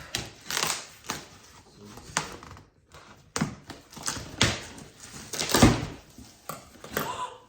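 Parcel being opened by hand: cardboard and packaging rustling and scraping, with a run of irregular clicks and knocks and a heavier thump about five and a half seconds in.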